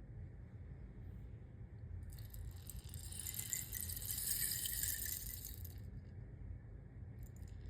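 Rainstick being tipped, its pebbles or seeds trickling down inside in a soft patter like falling rain. One pour starts about two seconds in and runs for about four seconds, and a second pour begins near the end.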